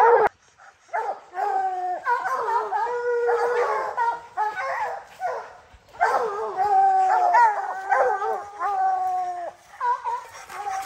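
A pack of bear hounds baying and howling at a tree: long drawn-out bawls from several dogs overlapping, the treed bark that says the bear is up the tree. There is a short lull about half a second in.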